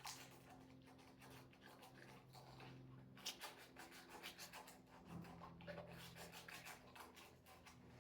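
Faint hand sanding of a 3D-printed plastic flute joint with sandpaper, quick repeated back-and-forth strokes smoothing off the print's Z seams.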